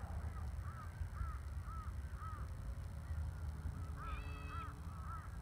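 Geese honking overhead: a run of short honks about two a second, a pause, then a louder burst of honks about four seconds in. A low rumble of wind on the microphone runs underneath.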